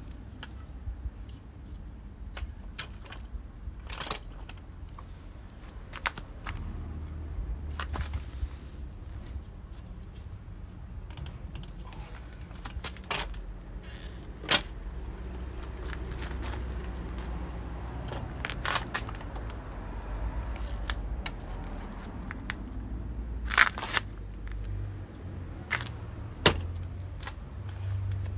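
Irregular metallic clinks and knocks of hand tools and parts being handled during motorcycle rear-wheel work, a few sharper clanks among them, over a steady low rumble.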